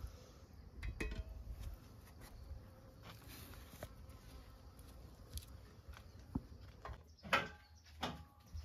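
Light clinks and knocks of a metal cooking pot and bowl being handled, a few scattered strokes with the sharpest about seven seconds in, over a faint low rumble.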